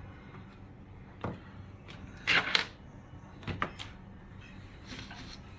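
Sharp plastic clicks and snaps from a spring-loaded mechanical desoldering pump (solder sucker) being worked on the board: one click about a second in, a louder close pair about two and a half seconds in, and another pair a second later.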